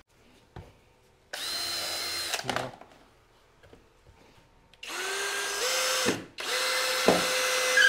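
Cordless drill driving screws into a wooden boat frame: three runs of the motor whine, about a second or two each, the second stepping up in speed partway and the last the longest.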